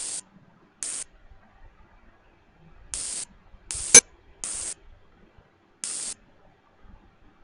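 Six short, even bursts of hiss, each about a third of a second, spaced irregularly, from the CNC lathe simulator's sound effect as the tool is jogged along Z. One sharp click about four seconds in is the loudest sound.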